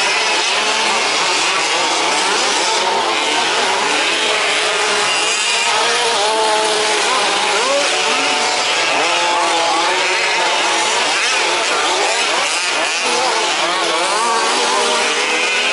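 Several 1/5th-scale remote-control trucks' small two-stroke petrol engines racing together, each revving up and down, their whines overlapping in a constant buzzing chorus.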